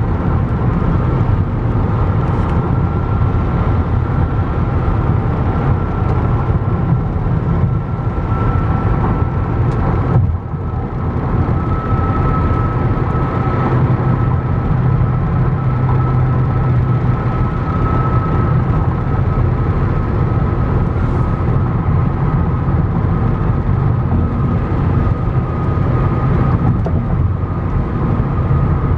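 Steady road and engine noise heard from inside a car cruising at highway speed, with a thin high whine running through it. The noise dips briefly about ten seconds in.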